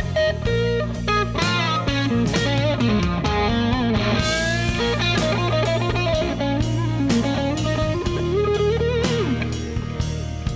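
Blues lead on a Telecaster-style electric guitar through a Carvin Vintage Series all-tube amp, with string bends and sliding notes, over a steady drum beat.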